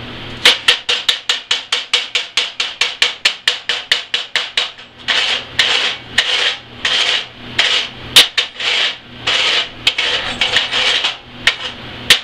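Chipping hammer rapidly striking steel plate to knock flux-core slag off a freshly laid root weld, about five quick strikes a second, then longer back-and-forth scraping strokes across the weld at about two a second.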